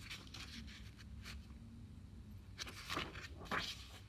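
A picture book being handled and lowered: faint rustling and a few light scrapes, loudest about three seconds in, over a low steady room hum.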